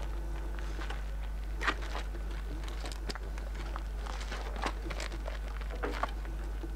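A steady low hum runs under the pause, with scattered faint clicks and rustles; the loudest is a short one about two seconds in.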